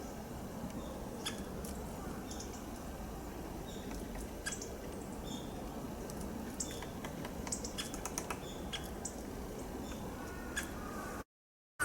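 A wild bird's short, high call notes and sharp ticks, repeated irregularly over steady background noise.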